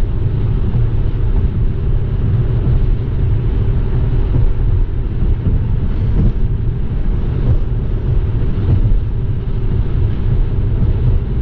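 Steady low rumble of tyres and engine inside a moving car's cabin at highway speed, on a stretch of rough road.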